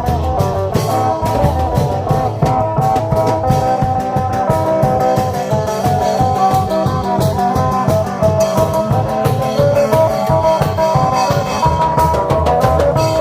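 Isan klong yao long-drum band playing procession music: a steady, quick drum beat under a plucked-string lead melody.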